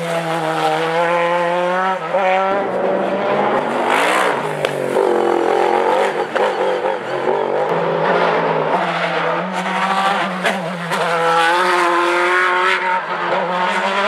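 Hillclimb race car's engine revving hard at high load, its pitch climbing and then dropping at each of several gear changes.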